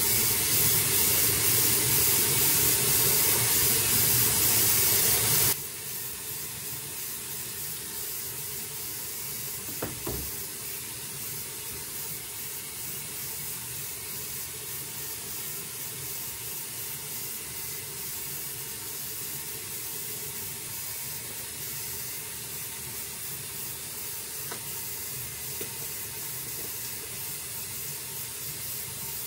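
Water running steadily from a bathroom sink tap, cutting off suddenly about five and a half seconds in. A much quieter steady hiss carries on after it.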